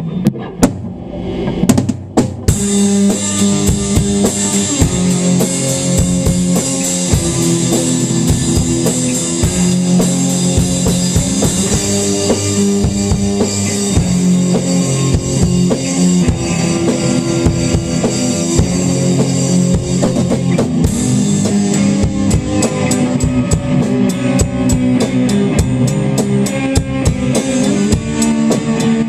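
Rock music: electric guitar played with finger tapping over a steady drum-kit beat, the full sound coming in about two seconds in.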